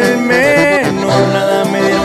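Instrumental intro of a Mexican regional corrido: a lead melody line over guitar and bass, with a note that bends up and back down about half a second in.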